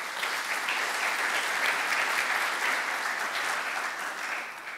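Audience applauding, a dense patter of clapping hands that dies away near the end.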